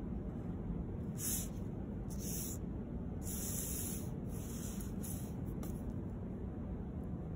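Mechanical pencil drawing lines on paper along a paper arch template: about five short scratchy strokes of varying length between about one and six seconds in, over a steady low hum.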